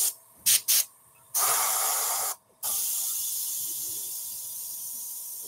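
Suction-feed dual-action airbrush spraying ink: three short puffs of air in the first second, then a hiss of spray. It stops briefly halfway, then runs on as a long spray that slowly tails off.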